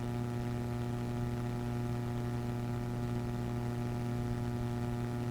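Steady low electrical mains hum, unchanging throughout.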